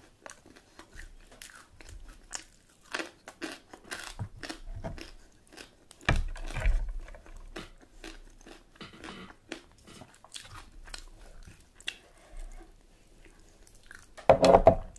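Close-miked chewing and biting of a mutton curry meal: irregular mouth clicks and crunches, with a louder spell about six seconds in and a louder burst just before the end.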